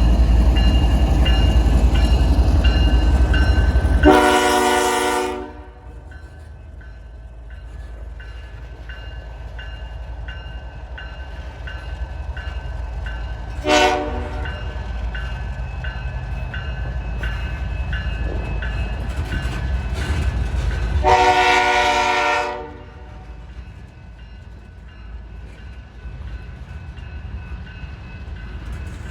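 BNSF freight train's diesel locomotive air horn sounding a long blast about four seconds in, a short toot near the middle, and another long blast a little past two-thirds through, over the low rumble of the moving train. The rumble is loud at first and drops sharply as the first blast ends.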